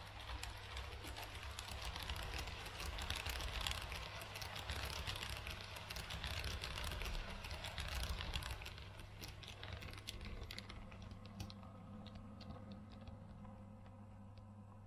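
NS double-deck model passenger train rolling into the station, its wheels clattering with rapid clicks over the rail joints and points. The clatter is loudest in the middle and thins out and fades as the train slows near the end, over a steady low hum.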